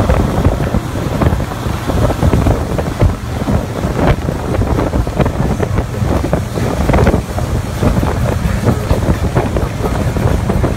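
Motorboats running at speed on open water, recorded from a boat under way: strong wind buffeting on the microphone over engine noise and rushing wake water.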